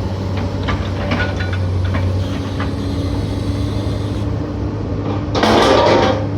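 Demolition machine's diesel engine running steadily while it handles scrap metal, with scattered metal knocks. About five seconds in comes a louder burst of clattering noise lasting under a second.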